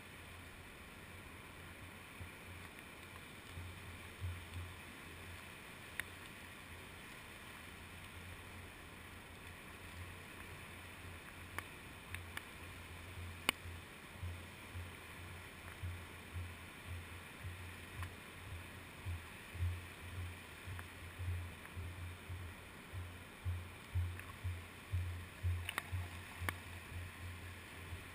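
Shallow sea wash lapping around a GoPro Hero2's waterproof case at the water's edge, heard muffled through the housing as low, irregular thumps that grow stronger and more frequent in the second half. A few sharp ticks, the loudest about halfway through.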